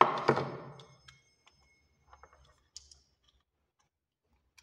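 Handling sounds from a GoPro Hero 9 Black and its battery: a louder knock at the start that fades within about a second, then scattered light plastic clicks and taps as the battery is picked out of the case's moulded tray.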